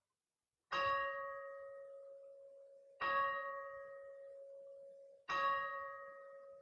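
A single altar bell struck three times, about two and a half seconds apart, each stroke ringing on and fading slowly. It marks the elevation of the chalice at the consecration.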